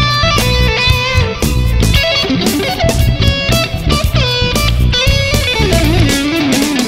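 Funk instrumental with an electric guitar playing lead over a bass and drum groove. The guitar holds notes with vibrato, and a wavering line slides down in pitch near the end.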